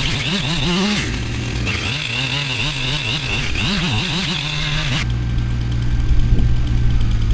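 An engine runs with its pitch rising and falling over and over, then switches abruptly to a steady low hum about five seconds in.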